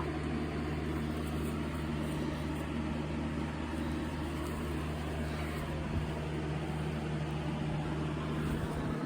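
Electric box fan running steadily, a constant motor hum under the whoosh of moving air.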